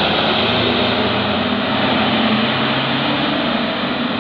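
Tour bus's diesel engine running as the bus passes close by, with engine hum under a wash of road noise, slowly fading as it moves off.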